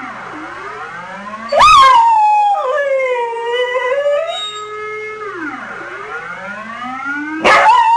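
A siren wails, its pitch sliding slowly down and back up. A dog howls along with it, loud wavering howls that break in about one and a half seconds in and again near the end, louder than the siren.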